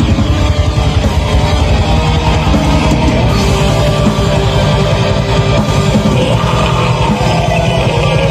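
Live metal band playing at full volume: distorted electric guitars over rapid, steady drumming, with no vocals standing out.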